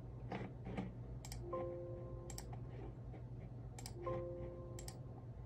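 Ballot scanner feeding a batch of ballots through one at a time. Roughly every two and a half seconds comes a sharp click, a short steady tone and a rustle of paper, over a steady low hum.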